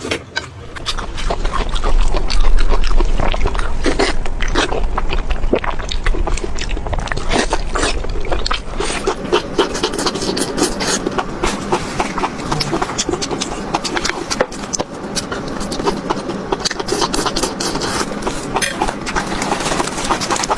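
Sped-up eating sounds: a dense, continuous stream of rapid chewing, lip smacks and mouth clicks.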